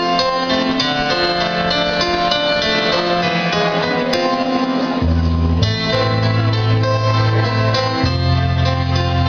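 Music from a stage performance. Deep bass notes come in about halfway through.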